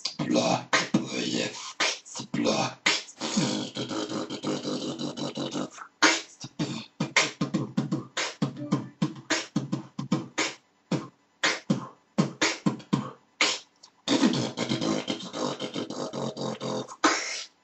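Solo beatboxing: a man making rapid percussive clicks and hits with his mouth, broken by two longer held vocal stretches; in the middle the beat thins to sparser single hits.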